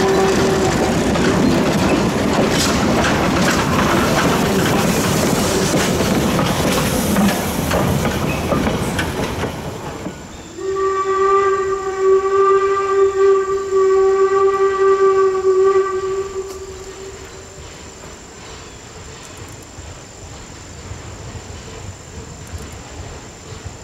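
Wooden passenger coaches rolling past close by, wheels clattering over the rail joints. About ten seconds in, a steam locomotive's whistle sounds one long blast of about six seconds from down the line, followed by a quiet background with a thin steady high buzz.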